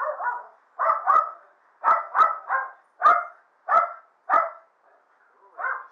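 Dog barking about ten times in short, sharp barks, some in quick pairs.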